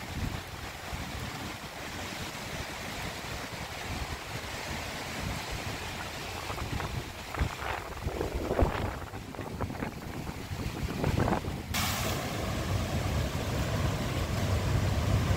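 Heavy storm surf breaking against a rocky sea wall, with wind gusting on the microphone. The sound changes abruptly near the end, leaving a stronger low rumble.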